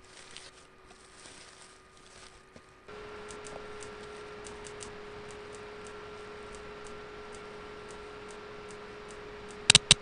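Foley electrical hum that switches on abruptly about three seconds in and holds steady, with faint ticks over it about three a second, then two sharp, loud cracks just before the end.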